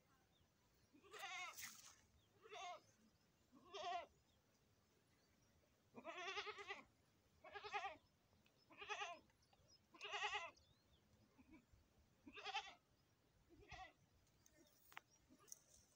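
Goat bleating: about nine quavering calls, a couple of them drawn out, with short pauses of one to two seconds between.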